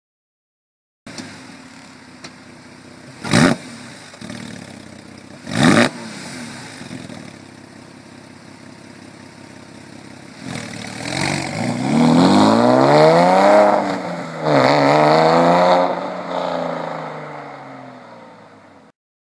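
Porsche 996 Carrera's flat-six engine through NHP aftermarket exhaust mufflers with sound valves: idling, two quick throttle blips, then two longer revs that climb and fall back before settling toward idle.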